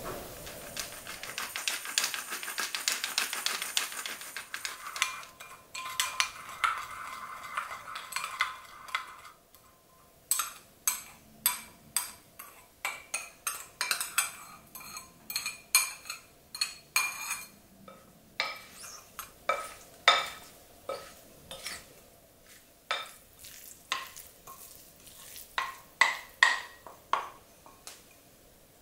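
A spoon stirring sauce in a small ceramic bowl, a fast run of clinks and scraping for the first several seconds. Then a wooden spoon mixing broccoli in a glass bowl, knocking against the glass about once or twice a second.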